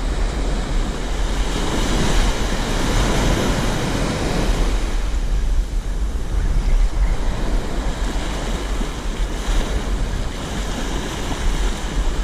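Ocean surf breaking and washing up a sandy beach, swelling and easing as each wave comes in, with wind buffeting the microphone in a steady low rumble.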